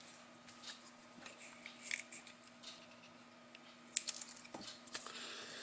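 Faint scattered clicks and ticks of scissors and thin cable wires being handled, with one sharper click about four seconds in, over a faint steady hum.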